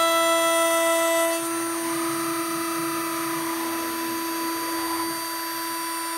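Stepcraft 840 CNC router's spindle motor running at a steady speed with a whine made of several pitches, over a hiss from the cut, while milling a bassoon reed blank. About a second and a half in it gets somewhat quieter as some of the upper tones drop out.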